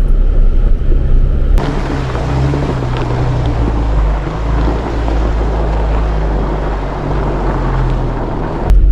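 Vehicle engine and driving noise: a low rumble with a steady engine hum. About a second and a half in it changes suddenly to a broader rushing noise over the hum, and it switches back to the low rumble near the end.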